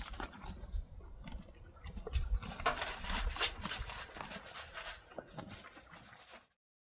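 Horses at their feed: irregular rustling and clicking with occasional low rumbles, cut off abruptly near the end.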